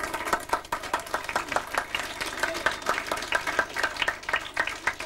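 A small group of people clapping, with separate claps clearly distinct. The applause starts suddenly and keeps going.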